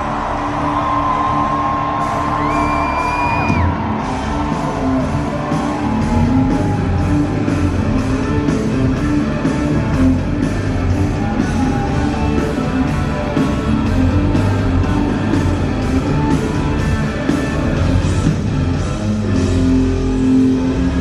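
Live rock band playing loud through a concert hall PA, with a steady drum beat, crashing cymbals and electric guitar. A few held high notes sound in the first seconds.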